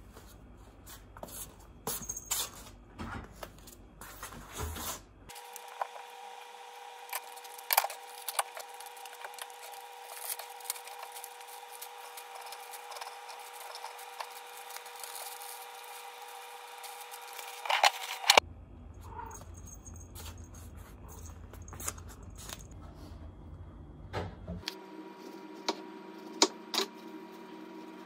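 Kitchen work at a counter: light clicks and knocks of utensils and dishes, then a steady appliance hum through the middle stretch with a couple of sharp knocks near its end, followed by more light clicks and a different steady hum.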